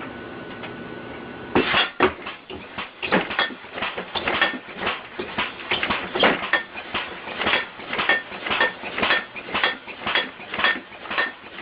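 Metal pots and pans being beaten in a fast, uneven clatter of ringing strikes, about three to four a second, by a homemade air-compressor-powered alarm contraption. The clanging starts about a second and a half in, after a low steady hum.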